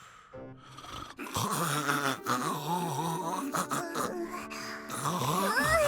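Exaggerated cartoon snoring sound effect: a sleeping father snoring with wavering, moaning tones. It builds after about a second and ends in a rising whistle.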